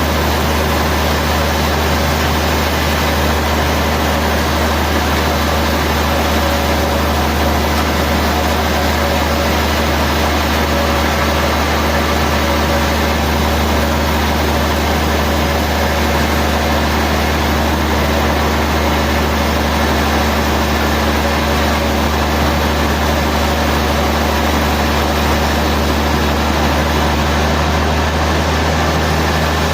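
Sawmill machinery running steadily, a constant low hum with a dense noisy wash above it that does not change.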